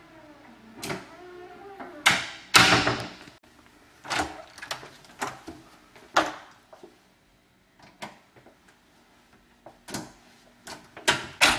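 A commercial door on an overhead door closer being opened and let swing shut, with a string of knocks and clicks from the door and its hardware. The loudest bang, with a short ringing tail, comes about two and a half seconds in, and another sharp knock comes near the end.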